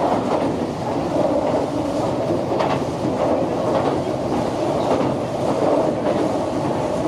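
Keihan electric train running across a steel truss bridge, heard from inside the front car: a steady rumble of wheels on rails with occasional clacks.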